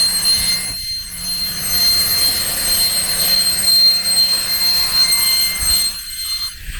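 A CNC router's saw-blade spindle running, with a steady high whine over machine noise. The sound dips briefly about a second in and again near the end.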